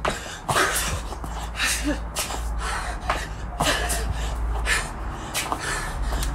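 A woman breathing hard from the exertion of burpees: sharp, noisy gasps and exhalations every half second to a second, over a steady low rumble.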